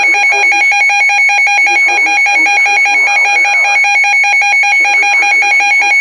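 Weather alert radios sounding their built-in alarm: a loud, rapid, shrill beeping at two pitches. It signals that a severe thunderstorm warning has been received over NOAA Weather Radio.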